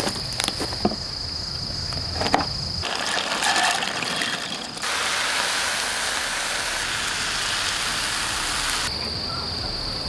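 Crickets trilling steadily, with a few clatters of camp cookware early on. About five seconds in, food starts sizzling in a frying pan on a portable gas stove; it runs for about four seconds, then stops and the crickets carry on.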